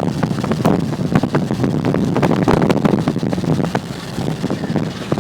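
Car driving, heard from the back seat: steady road and engine noise, with wind buffeting the microphone in irregular crackles.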